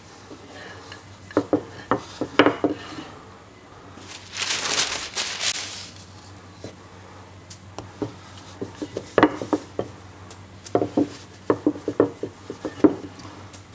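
Wooden rolling pin knocking and rolling on a wooden bench as dough balls are flattened into bread rolls, in several clusters of light knocks, with a longer rubbing, rushing noise about four to six seconds in.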